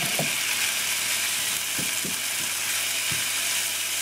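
Minced garlic and ginger sizzling in sesame oil in a hot frying pan just deglazed with soy sauce, a steady hiss. A wooden spoon knocks lightly against the pan a few times.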